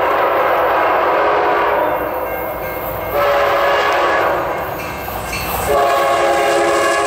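Diesel freight locomotive air horns sounding chords over the low rumble of a passing train. The horn chord changes abruptly about two seconds in, again about a second later, and once more near the end, as different horns follow one another.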